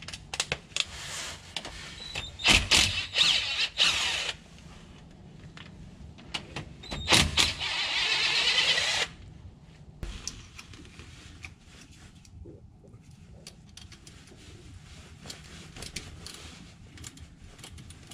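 A power tool spinning out driveshaft bolts in two bursts of about two seconds each, with small metallic clicks and knocks of tool handling between them.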